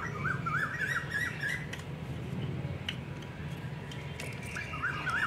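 A bird calling in a quick warbling run of rising and falling notes for about a second and a half, then again briefly near the end, over a low steady background hum.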